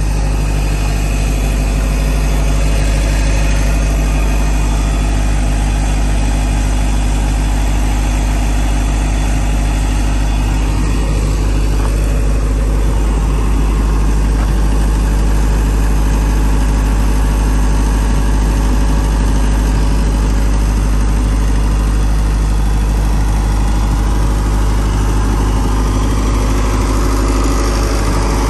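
John Deere diesel engine of a TSE cable puller running steadily and loudly.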